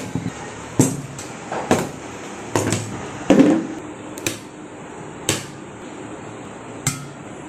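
Steel serving ladle clinking and knocking against plates and steel bowls while rice and dal are served: about eight sharp clinks at uneven intervals, one ringing briefly about three seconds in.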